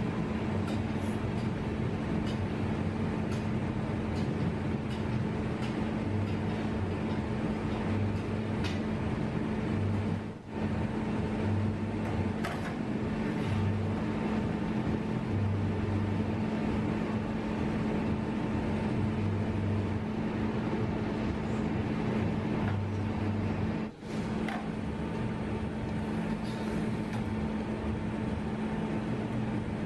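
A steady mechanical hum, held at one pitch, with a few faint knocks. It drops out briefly twice, about ten seconds in and again about twenty-four seconds in.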